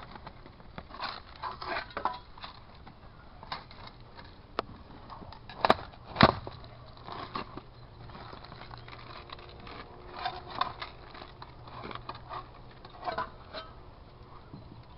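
Irregular crackling and scraping as a shrub's cut branches and roots are handled and broken during removal, with two sharp knocks about six seconds in.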